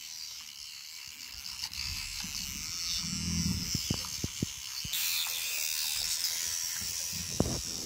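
Electric toothbrush buzzing while brushing a dog's teeth, louder from about five seconds in, with a few short clicks and knocks.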